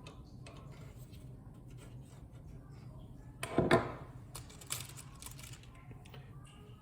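Screwdriver driving a thick threaded fan screw through a case fan into the front of a PC case: small scattered clicks and scrapes of metal and plastic, with a louder short knock about three and a half seconds in and another brief one about a second later.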